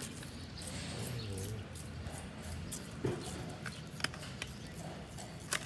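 Young kittens mewing faintly twice, with a few light clicks later on.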